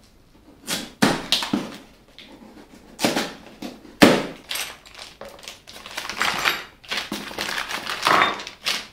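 Cardboard box being unpacked: plastic packing straps cut with scissors, then the flaps opened and the styrofoam packing handled. It comes as a run of irregular scrapes and rustles with a few sharp clacks.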